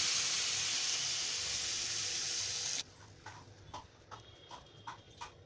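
Hot water poured into a hot non-stick wok of roasted semolina and vegetables, a loud steady gushing hiss that cuts off suddenly near three seconds in. Then the mix is stirred with a silicone spatula, a few soft scattered taps.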